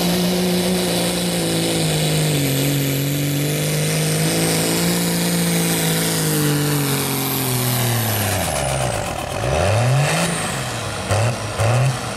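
Dodge Ram's Cummins diesel engine at full load pulling a sled, holding a steady high note for about eight seconds. The pitch then drops sharply as the driver lets off at the end of the pull, followed by a few short revs.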